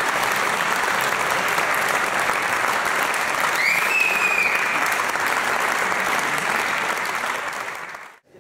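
Audience applauding, with a short rising whistle about halfway through; the applause fades out near the end.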